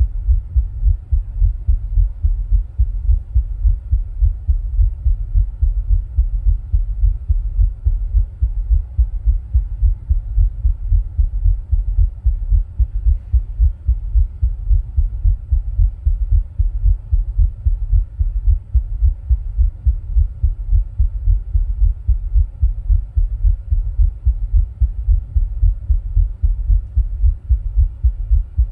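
A person's heartbeat, heard as a steady, regular train of low thumps, recorded while he rebreathes his own air from a plastic bag.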